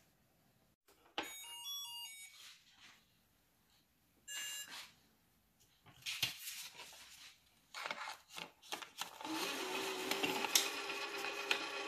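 Toy ATM money bank: a quick run of electronic beep tones about a second in, a single beep a few seconds later, then a few light clicks. Near the end its motorised roll-in note slot whirs steadily as a £20 banknote is fed into it.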